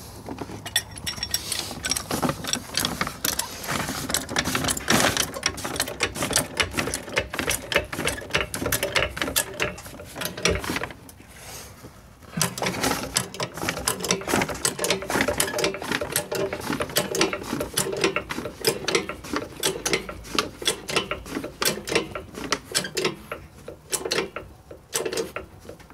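Hydraulic trolley jack being pumped by its handle, the pump and lifting arm clicking and rattling stroke after stroke, with a short pause about eleven seconds in. The jack, freshly bled of air, rises and lifts a car under load.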